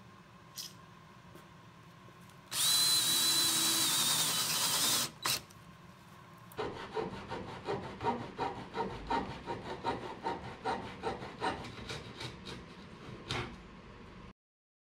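A power saw cuts pallet wood for about two and a half seconds, with a steady high whine. A few seconds later comes a run of rhythmic back-and-forth strokes on wood, about two or three a second.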